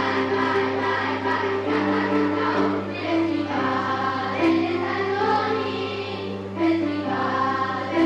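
A choir singing sustained notes with musical accompaniment, over a steady low hum.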